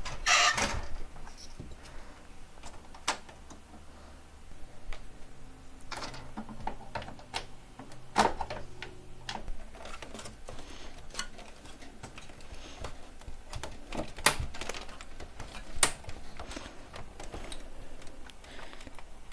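Plastic clicks, knocks and rattles of a Samsung ML-3312ND laser printer's housing and rear door being opened and pried at during disassembly, in irregular single clicks with a louder rattle right at the start.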